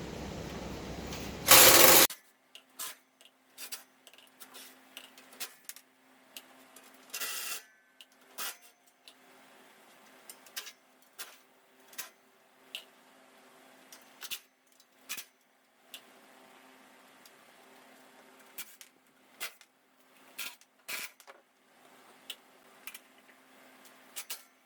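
A steady rushing noise for about the first two seconds, ending in a short loud burst. After that come scattered clicks, clinks and knocks of hand tools and metal parts being handled, over a faint steady hum.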